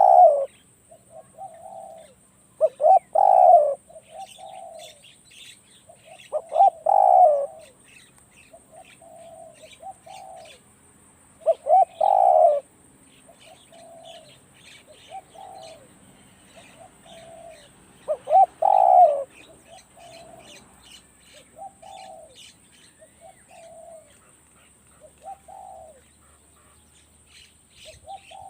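Spotted dove cooing: loud coo phrases repeat every four to seven seconds, with softer coos between them. Small birds chirp faintly in the background.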